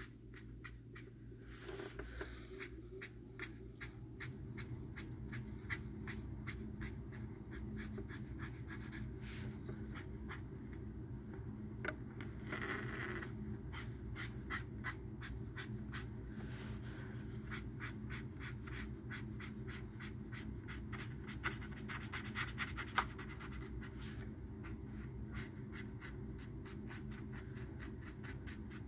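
A pen scratching on sketchbook paper in quick, repeated colouring-in strokes, over a steady low hum.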